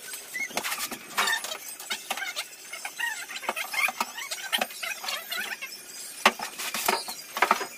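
Many short, high, squeaky cries of a young animal, rising and falling in pitch, with sharp knocks and clicks among them, the loudest knock about six seconds in.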